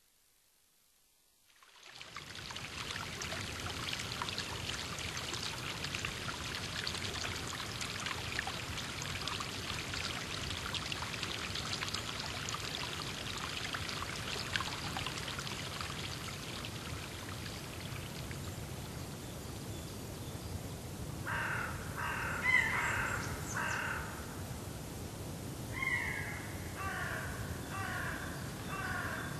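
A small stream of water running and splashing down a stepped channel, a steady rushing that fades in after about two seconds. In the last third a crow caws twice in quick runs of several harsh calls each.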